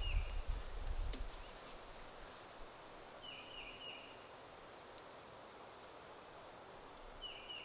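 Quiet outdoor background with a small bird calling: a short chirp pair about three seconds in and another near the end. A low rumble and a single click in the first second.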